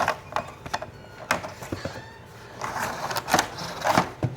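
Handling noise: a scattered series of sharp knocks and clatters of tools and gear being moved, with the loudest knocks near the end.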